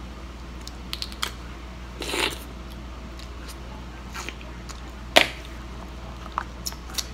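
Sun-dried river clam shells clicking and cracking as they are pried open by hand and eaten, with a short noisy burst about two seconds in and a louder sharp crack about five seconds in.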